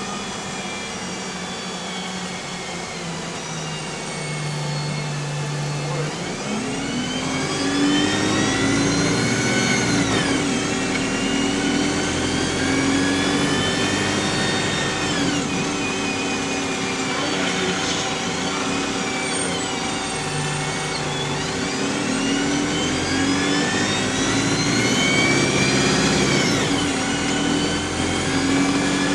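Bus's Voith automatic gearbox whining under its engine as the bus pulls away, the whine rising in pitch and then dropping at each gear change, three times over. It starts after a few seconds of steady low running.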